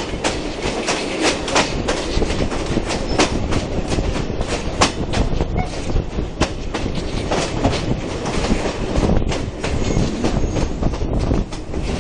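Carriage wheels of a steam-hauled passenger train clicking and clattering irregularly over the rail joints, over a steady rolling rumble, heard from an open carriage window.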